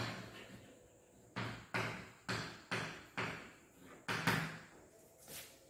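Chalk writing on a blackboard: about ten quick taps and short scrapes of the chalk stick against the board, each fading fast.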